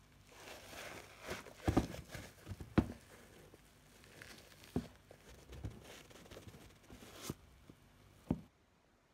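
Handling noise from a sneaker being turned over in the hands: rustling and scuffing as fingers pull at the laces and fold back the tongue and collar, with a few sharp knocks, two of the loudest early on and one near the end.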